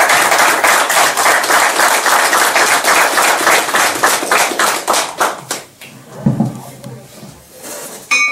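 A room of people applauding, dense clapping that thins out and stops about five and a half seconds in. Near the end a brass desk bell is struck once and rings.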